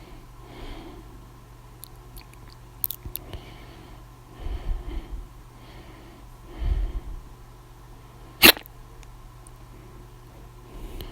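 A person's loud hiccups: one sharp, sudden hiccup about eight and a half seconds in, with several softer, breathy hiccups and breaths before it.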